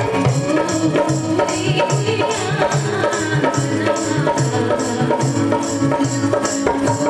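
Live Bhojpuri stage song: a woman singing into a microphone over keyboard and a brisk, steady beat of hand-drum and electronic percussion.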